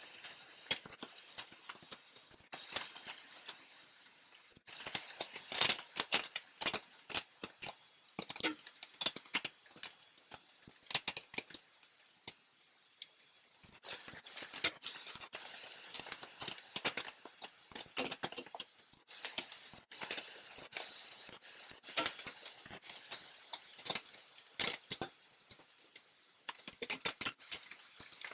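Irregular sharp metallic clinks and ticks, coming in uneven clusters, as of small steel parts being handled and tapped.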